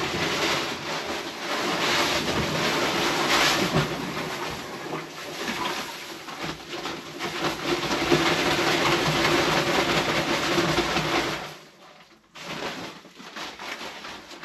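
Granulated sugar pouring from a paper sack into a large plastic tank of warm water: a steady rushing hiss that stops suddenly about eleven and a half seconds in, followed by quieter rustling of the emptied sack.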